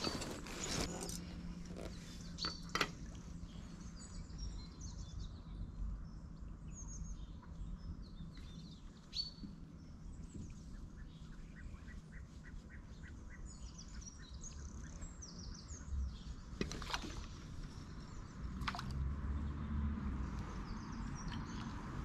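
Small birds chirping and singing, short scattered calls throughout, over a low outdoor rumble, with a few sharp knocks about three seconds in and twice near the end.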